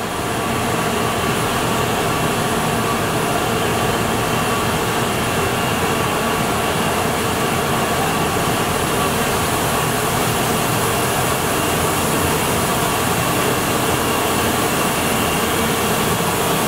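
Steady machine-shop din from rows of CNC machining centres running, a constant even noise with a faint steady whine in it.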